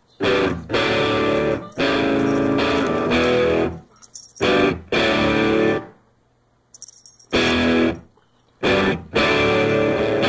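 Guitar music in short phrases that start and cut off abruptly, with a near-silent gap of about a second and a half past the middle.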